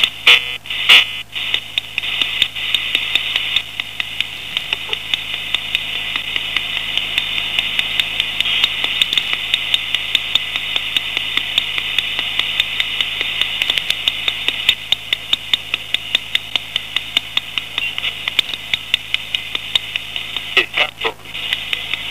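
Steady electronic hiss in a narrow upper-mid band with a faint low hum, broken by sharp, irregular clicks at about three a second. These are the signs of a heavily noise-corrupted transmission signal. There are louder crackling bursts in the first second and again near the end.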